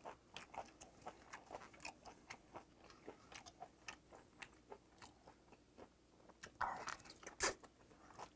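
Faint close-up mouth sounds of biting and chewing boiled octopus tentacle: soft wet clicks and smacks, a few a second, louder for a moment near the end.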